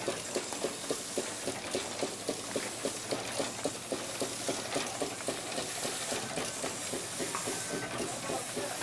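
A.B. Farquhar steam road engine running, beating at an even rhythm of about four strokes a second over a steady hiss of steam.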